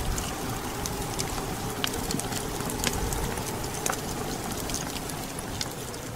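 Wind blowing with a steady low rumble, mixed with a wood fire crackling in frequent sharp pops.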